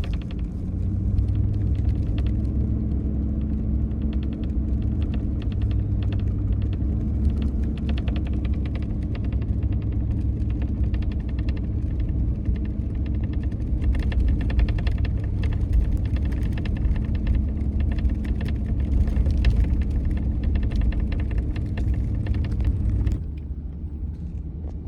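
Pickup truck driving through fresh, unplowed snow: steady engine and road rumble with a dense crackle of snow crunching under the tyres. The rumble drops near the end.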